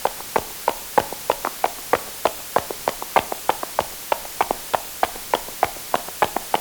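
Footsteps on a hard surface: quick, even steps at about three a second, each a sharp click.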